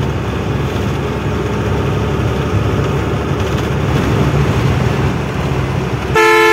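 Steady engine and road noise of a loaded truck driving, then a short, loud vehicle horn blast near the end.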